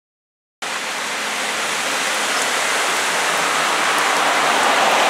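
Heavy rain pouring down: a steady, even hiss that starts suddenly about half a second in and grows slightly louder.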